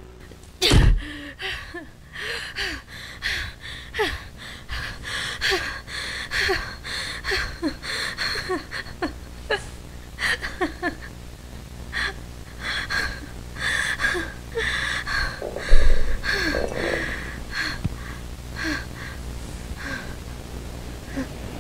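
A man crying: ragged, gasping sobbing breaths with short broken vocal catches, over and over. A low thump lands about two-thirds of the way through.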